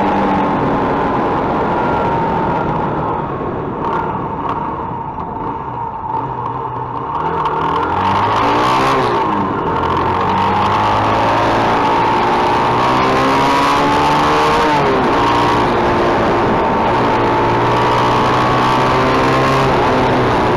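Mondial motorcycle engine running under way, with wind rushing over the microphone. The engine eases off and goes quieter about three seconds in, revs up sharply and drops back around eight seconds, then pulls steadily for the rest of the ride.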